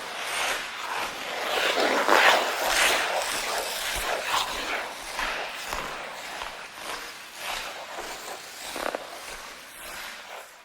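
Ice skate blades scraping and gliding across ice in a run of irregular strokes, fading out near the end.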